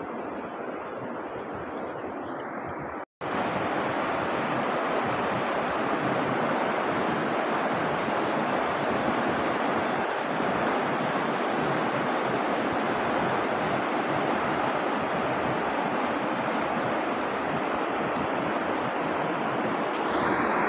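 River rapids rushing over boulders: a steady, unbroken rush of water, quieter for the first few seconds, then cutting out briefly and coming back louder.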